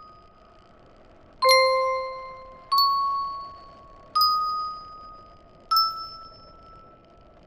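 Four slow bell-like chime notes, each struck and left to ring out, about a second and a half apart and stepping slightly higher in pitch each time.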